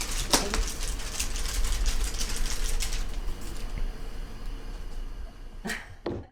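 Kittens playing on the floor: scattered light taps, clicks and scuffles of paws and toys over steady room hum, with two soft knocks near the end.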